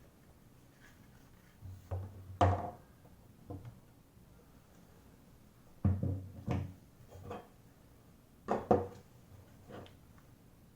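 Scattered clicks and knocks of the oscilloscope's parts being handled while it is taken apart. The loudest knocks come about two and a half seconds in, twice around six seconds, and twice close together near nine seconds.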